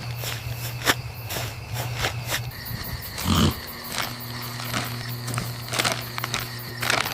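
An animal's short call about three seconds in, over a steady low hum and scattered crackling clicks.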